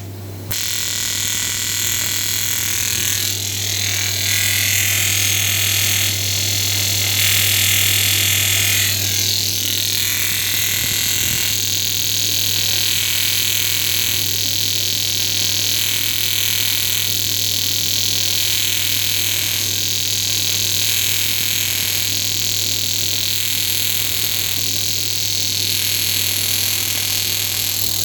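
TIG welding arc set around 80 amps, a steady loud hiss and buzz that strikes up about half a second in. The upper hiss swells and drops in a slow regular beat, as with a pulsed arc.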